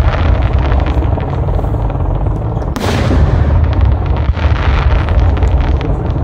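Large fireworks display in full barrage: shells bursting in a continuous deep booming, with many sharp cracks on top and one especially loud burst about three seconds in.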